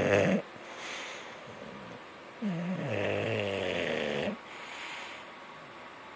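Bulldog snoring in its sleep, in a slow regular rhythm: one loud snore cuts off just after the start, a softer breath follows, then another loud snore of about two seconds and another soft breath.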